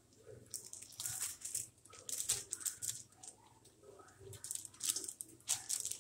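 Clear plastic bag of cooked rice crinkling and crackling as hands squeeze and shake it empty over a steel pot, in irregular bursts.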